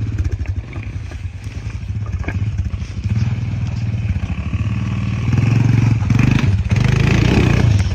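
Small quad ATV's engine running as it is ridden over a rocky dirt trail, getting louder about five seconds in.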